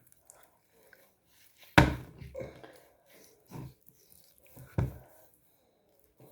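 Beef bones knocking as they are handled in the kitchen: three knocks, the loudest about two seconds in, with quiet rustling between.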